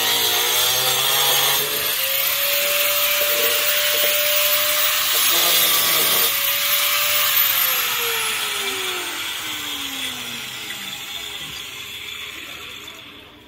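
Handheld angle grinder running at full speed cutting tile, then switched off about seven seconds in, its whine falling in pitch as the disc winds down.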